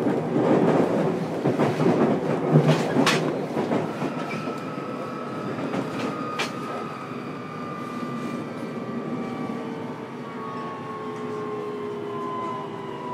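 Running sound inside a JR Kyushu 303 series electric train's motor car slowing for a station stop: the traction motor whine falls steadily in pitch under braking. A few sharp clicks from the wheels over rail joints come in the first several seconds.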